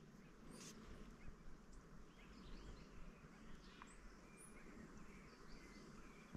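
Near silence: faint outdoor ambience with scattered small bird chirps.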